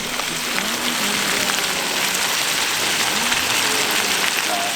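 Food sizzling and crackling in a hot pan, a dense steady hiss full of small pops, with faint voices in the background.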